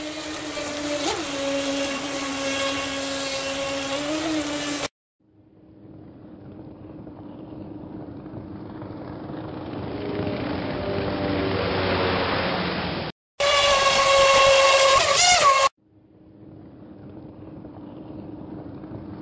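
Small RC jet boat's 3900KV brushless motor driving a 19 mm water jet at speed, a high electric whine that dips and rises in pitch with the throttle, mixed with rushing water. The sound comes in separate clips that cut off abruptly, about 5 s and 13 s in, with the loudest whine in a short burst near the middle.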